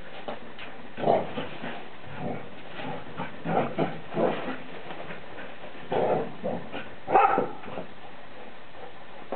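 Two dogs at play, giving several short dog sounds in separate bursts, the loudest late on.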